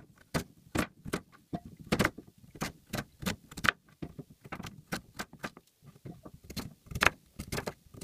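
Knife blade striking a plastic cutting board as sweet potato and then banana are chopped: a quick, irregular run of sharp knocks, about three a second.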